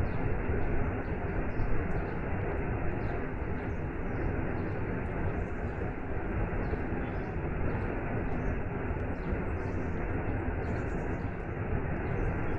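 Waterfall and rain: a steady, even rushing of falling water with no break or change.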